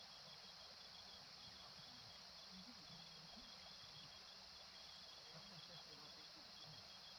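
Faint night insect chorus on a farm: crickets chirping in a steady fast pulse over a constant high hiss of insects.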